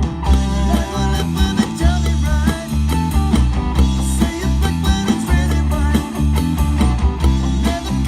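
Rock band playing: distorted electric guitar over a bass line and a steady drum beat.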